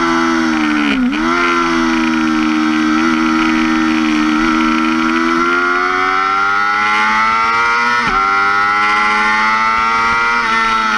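2005 Yamaha R6's 600 cc inline-four engine running at high revs on track, heard from on the bike. Its pitch dips and recovers about a second in, holds steady through a bend, then climbs under acceleration. There is an upshift, a sharp drop in pitch, about eight seconds in, and then the revs climb again.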